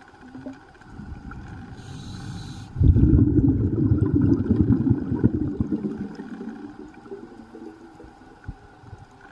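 Scuba diver breathing through a regulator underwater: a short hiss of inhalation about two seconds in, then a loud, low burst of exhaled bubbles that fades over about three seconds.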